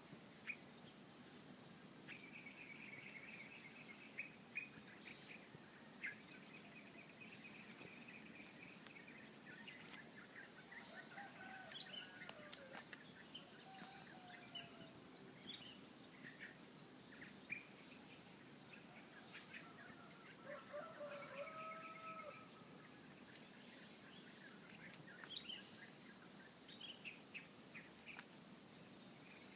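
Rural outdoor ambience: a steady high insect drone under scattered small-bird chirps, with a rooster crowing faintly in the distance, about ten seconds in and again about twenty seconds in.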